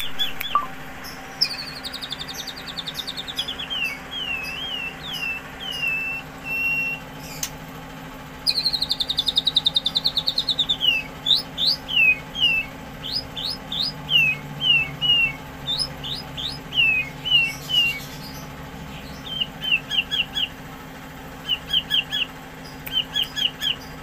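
White-rumped shama (murai batu), a pied 'trotol' bird, singing. Its song mixes rapid trills that slide down in pitch with short clear whistles and quick upward-sweeping notes, and ends in quick runs of three or four short notes. A steady low hum lies underneath.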